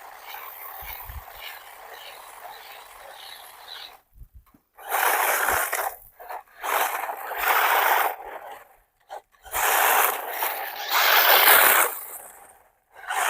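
Gantry Pro 4WD RC off-road car driven over loose ground, its tyres scrabbling and scraping in about five loud, noisy bursts of a second or so each, after a few seconds of faint hiss.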